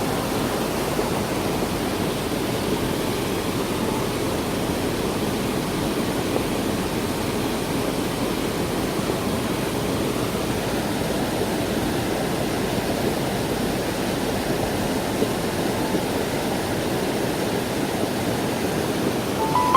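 Steady rushing roar of the Giessbach Waterfall's falling water.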